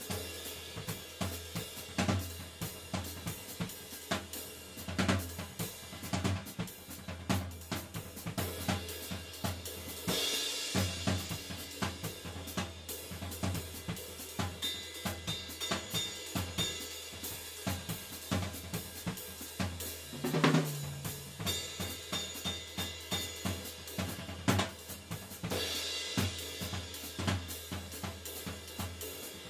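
Drum kit played in a steady groove: snare, bass drum, hi-hat and cymbals, among them a 20-inch Avedis Zildjian Ping Ride, most likely from the 1960s, recorded raw without sound processing. A cymbal wash swells about ten seconds in and again near the end, and a low drum hit rings out about twenty seconds in.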